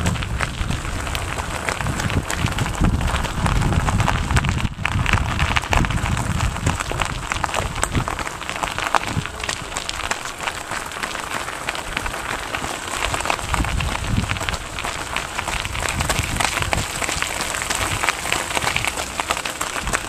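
Wind buffeting a moving camera's microphone, a steady low rumble under a dense, even crackle of handling noise.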